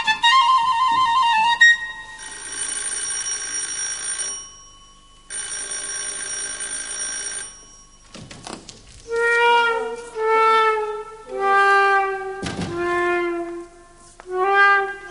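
A few quick flute notes, then an electric bell rings twice, each ring about two seconds long, like a doorbell. From about nine seconds in, a slow woodwind melody of mostly falling notes plays.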